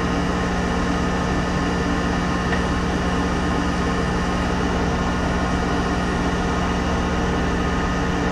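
Monarch 10EE toolroom lathe running steadily, a steady hum with several fixed tones, while a Micro 100 tool takes a light turning cut on a small piece of oil-hardening drill rod.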